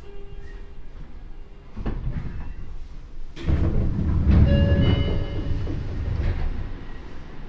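Inside a Seibu 9000 series commuter train at a station stop: a faint motor tone dies away, then a clunk. About three and a half seconds in, a sudden loud rush and rumble comes in, typical of the doors sliding open, and it dies down after a few seconds.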